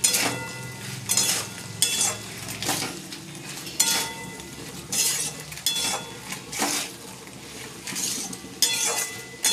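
Metal spatula scraping and clinking against a metal kadai as diced potatoes, tomato and spices are stirred and fried, about one ringing clink a second, over a faint frying sizzle.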